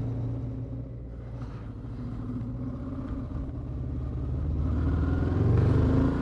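Suzuki V-Strom 650's 645 cc V-twin engine running under way, easing off about a second in and then rising in pitch and loudness as the bike accelerates over the last few seconds.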